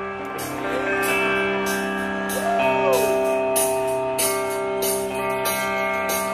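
Live rock band's electric guitars ringing out held chords, with a few sliding notes and repeated strummed strokes, opening a song.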